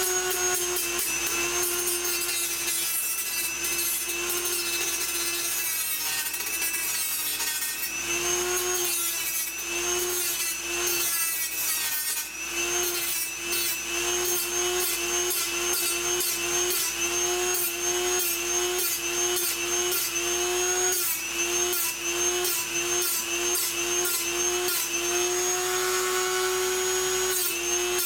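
Handheld rotary tool spinning a small abrasive cut-off disc, grinding through the rivets of a sheet-metal case. Its high whine dips in pitch again and again as the disc is pressed into the metal and recovers between cuts, over a gritty grinding rasp.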